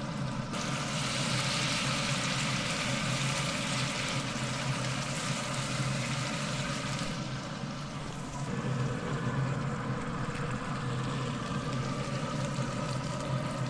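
Canned tomatoes sizzling and bubbling in a hot cast-iron pan over onions and garlic. The hiss picks up about half a second in and eases around seven seconds, over a steady low hum.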